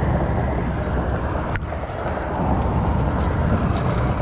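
Steady low rumble of wind buffeting the microphone, with one sharp click about one and a half seconds in.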